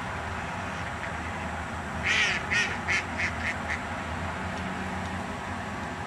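A duck quacking: a run of about six quacks, starting about two seconds in and fading away within two seconds, over a steady low rumble.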